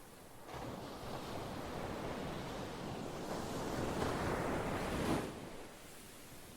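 Ocean surf: a wave washes in, swelling from about half a second in to its loudest around five seconds, then falls away quickly.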